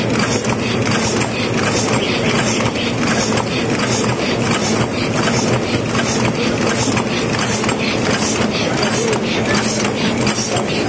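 JBZ OC12 paper cup making machine running at high speed: a steady, rapid mechanical clatter of evenly repeating strokes, a few a second, over a constant motor hum.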